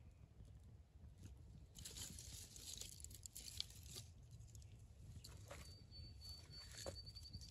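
Faint crackling, rustling and a few sharp snaps as a campfire is lit with a store-bought fire starter. A thin, steady high-pitched tone comes in about two-thirds of the way through.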